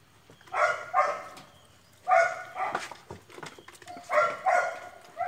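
German Shepherd puppy barking in short, high yaps, about six of them, some in quick pairs.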